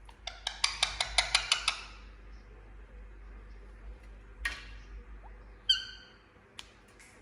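Indian ringneck parakeet calling: a quick run of about eight sharp chattering notes, then, after a pause, one harsh squawk and a short clear call.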